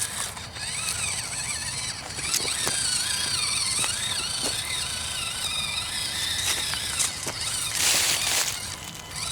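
Axial SCX24 micro RC crawler's small electric motor and gears whining as it crawls over rock, the pitch rising and falling with the throttle. A few clicks sound through it, and a short rush of noise comes near the end.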